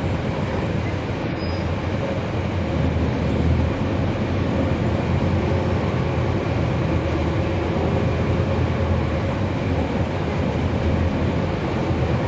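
A 2011 NABI 40-foot transit bus under way, its Cummins ISL9 inline-six diesel giving a steady low rumble over road noise, heard from on board.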